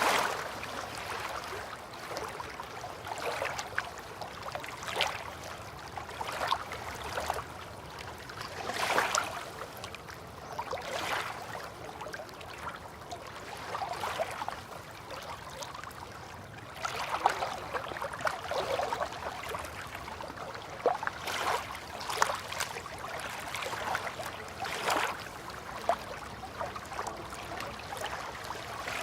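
River water lapping at the bank in small, irregular splashes that come every second or two over a soft steady wash.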